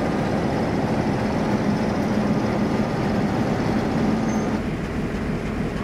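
Class 47 diesel locomotive's Sulzer twelve-cylinder engine running as the locomotive passes close by at low speed, with a steady low hum. The sound eases a little about four and a half seconds in as the locomotive moves past.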